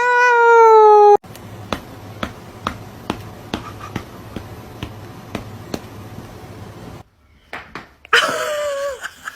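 A cat's long, drawn-out meow ends about a second in. A run of soft light taps follows for several seconds, then a second, shorter meow falls in pitch near the end.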